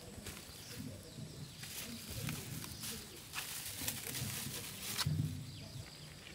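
Thin plastic bag crinkling and rustling as a bag of persimmons is lifted and handed over, in scattered sharp crackles, with a short, louder low sound about five seconds in.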